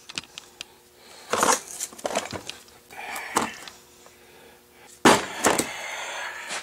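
Handling noise: scattered sharp clicks and several short, rough scraping or rustling bursts. The loudest is a sudden one about five seconds in.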